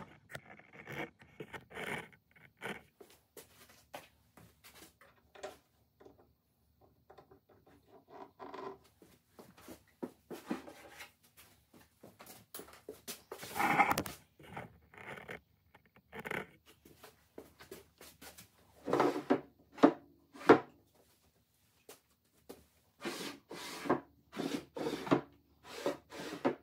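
Wooden cabinet drawers slid in and out and fitted by hand: irregular wood-on-wood rubbing and scraping with sharp knocks, in clusters about 14 seconds in, around 19 to 20 seconds and near the end. Played back at double speed.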